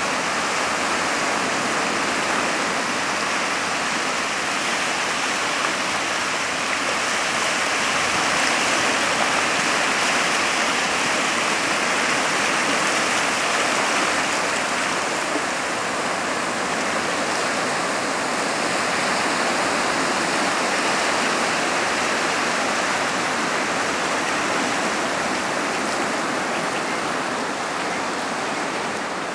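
Small sea waves breaking and washing over a shallow rocky shore: a steady rushing of water without a break.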